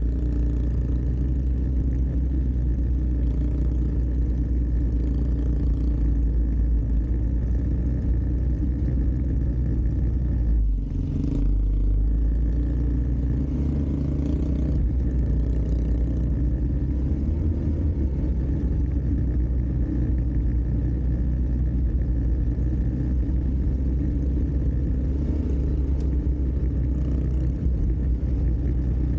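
An ATV's engine running steadily while riding. The sound dips briefly about eleven seconds in.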